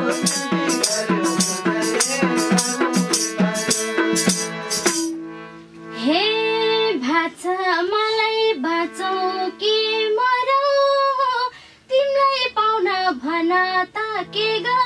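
Live Nepali dohori folk music. Harmonium, madal drum and tambourine play a quick rhythm with hand claps, then about five seconds in the percussion stops. A woman sings a slow, drawn-out line over the held harmonium drone, and the percussion comes back in near the end.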